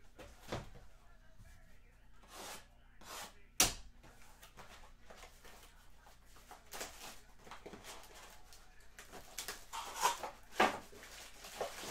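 A sealed cardboard trading-card hobby box being handled and opened: plastic wrap crinkling and tearing and cardboard scraping, in short scattered bursts. There is a sharp knock about three and a half seconds in, and a run of louder rustles and knocks near the end as the packs come out.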